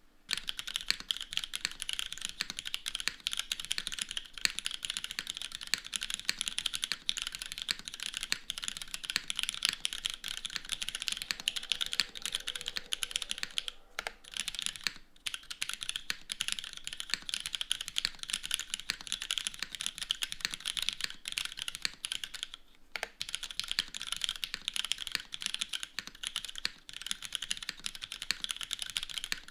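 Oumini 60 mechanical keyboard with Cherry RGB Black linear switches, GMK keycaps, a top-mounted aluminium plate and no foam, typed on quickly and continuously: a dense clatter of keystrokes, with a few brief pauses.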